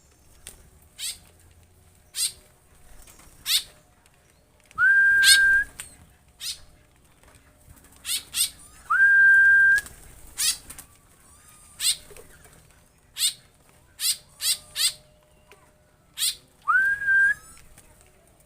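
Aviary songbirds calling with many short, sharp chirps, and three times a clear whistle that rises and then holds one steady pitch for just under a second.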